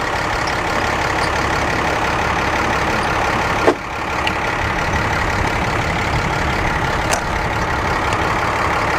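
Steady rumble and hiss of a running vehicle engine, with a brief sharp sound a little under halfway through.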